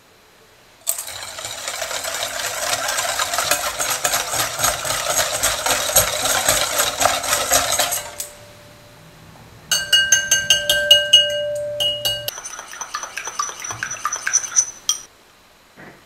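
Wire whisk beating egg yolks in a glass mixing bowl, a fast run of clinks and scrapes against the glass for about seven seconds. After a brief pause come more clinks, and the glass bowl rings with each one.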